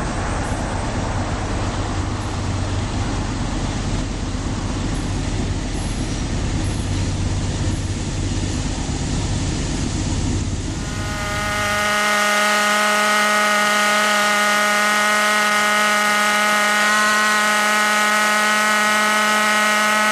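Diesel freight locomotive approaching with a steady rumble. About halfway through, a long multi-note train horn chord starts and is held steady to the end.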